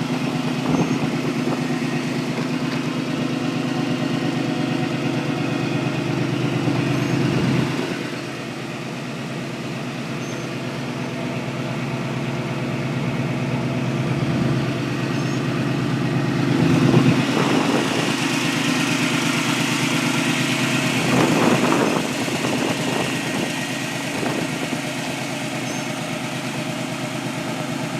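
1969 Camaro's new GM 350 crate small-block V8 idling steadily, with a couple of brief swells in the second half.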